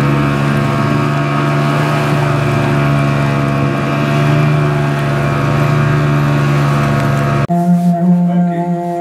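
Outboard motor running steadily at cruising speed with an even drone. It cuts off abruptly about 7.5 seconds in, giving way to voices and music.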